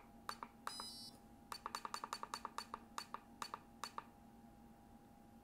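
Short clicks from presses on an antenna analyzer's keypad as its menu is scrolled: a few single clicks, then a fast run of about seven a second for a couple of seconds in the middle. A brief high buzz sounds just under a second in, over a faint steady tone.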